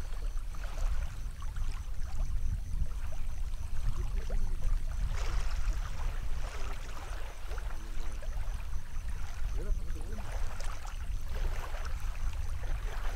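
Steady low wind rumble on the microphone, with faint distant voices and water sloshing around men wading to land a hooked carp.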